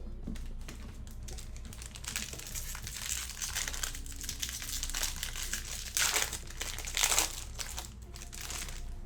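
Crinkling of a sports-card pack wrapper being handled, loudest in two bursts near the end.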